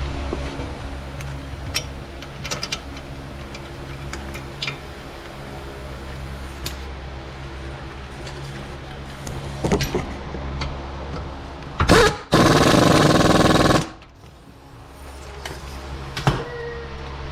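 A power wrench runs in one short burst of about a second and a half, roughly twelve seconds in, driving in the hub assembly's mounting bolts. Before it come scattered metal tool clicks and knocks over a steady low shop hum.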